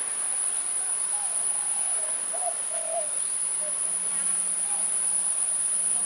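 Steady high-pitched insect drone that does not change, with a few faint short calls underneath.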